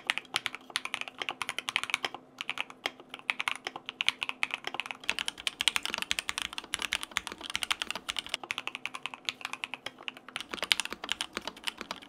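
Fast typing on a mechanical keyboard: a quick, uneven run of key clacks.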